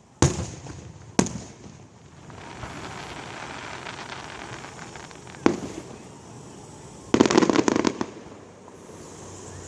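Fireworks going off: single sharp bangs of shell bursts, three spread over the first six seconds, then a rapid run of crackling reports about seven seconds in.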